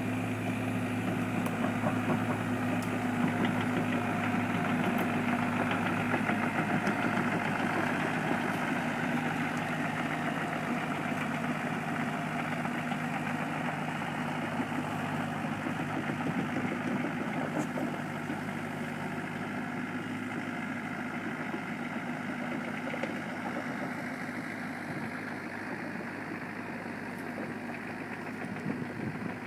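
Caterpillar 305.5D mini excavator's diesel engine running steadily as the machine works and drives off on its tracks, growing a little quieter over the last several seconds.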